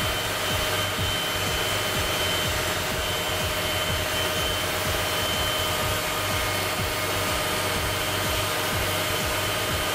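Electric stand mixer running at a steady speed, mixing doughnut dough as flour is poured into the bowl.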